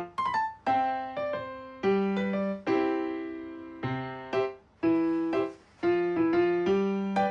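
Background music: gentle piano or electric piano chords, struck one after another and left to fade.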